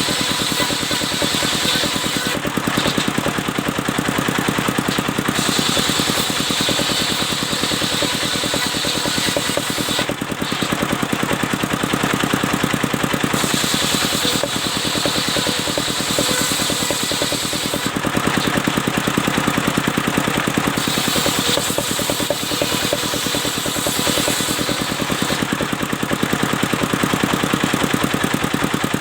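Portable engine-driven circular sawmill running steadily with a fast, even engine beat, while the blade's high hiss strengthens and fades every few seconds as it cuts through albasia wood.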